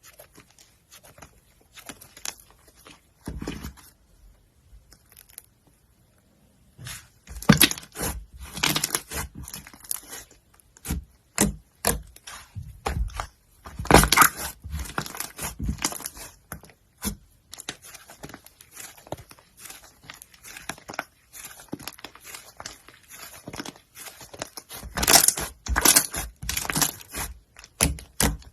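Slime being squeezed, poked and stretched by hand, making quick runs of sticky clicks and crackling pops. The sound is sparse and soft at first, then busier and louder from about seven seconds in, with the loudest stretches near the middle and near the end.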